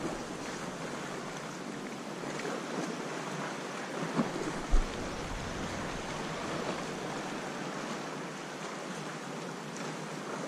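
Steady wash of small sea waves with some wind, and a couple of brief knocks about four to five seconds in.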